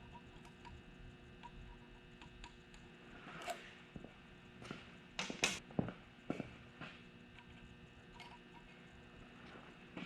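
Light metallic clicks and taps from tools and engine parts being handled during bearing removal on a racing V8. Sharper clinks come in a cluster around the middle, over a faint steady hum.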